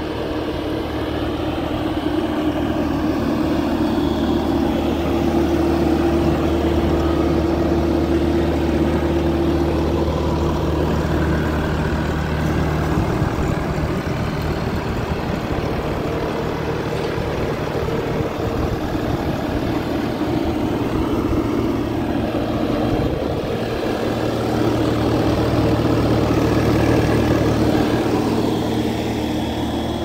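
Diesel engine of a Bobcat T595 compact track loader idling steadily.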